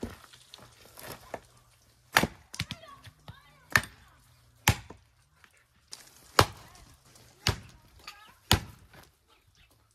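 Axe chopping firewood into kindling on a wooden chopping block: a string of sharp wooden chops, six loud ones a second or so apart, with lighter taps before them.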